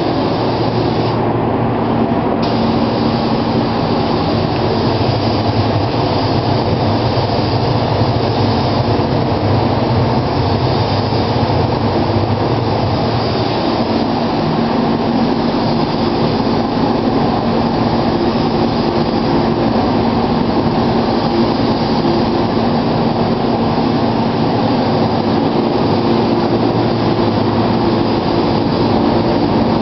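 Steady air noise of a paint-spraying setup: a spray gun laying down clear coat over a booth's ventilation fans, with a steady low hum underneath.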